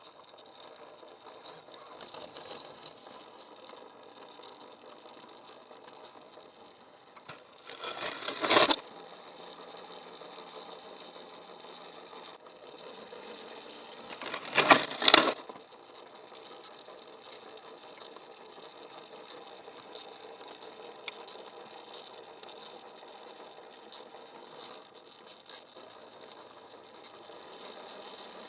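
BRX01 RC crawler's electric motor and geared drivetrain whining steadily as it drives, with two louder surges of about a second each, around eight and fifteen seconds in.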